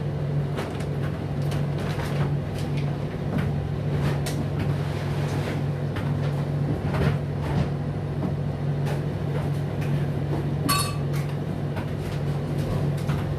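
Indesit IDC8T3 condenser tumble dryer running its cooldown: a steady motor hum with clothes tumbling in the drum, giving light knocks and clinks. There is a brief rattling clink about ten seconds in.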